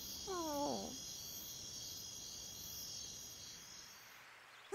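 Crickets chirping steadily in a night ambience, fading out near the end. About half a second in, a cartoon puppy gives one short whine that falls in pitch.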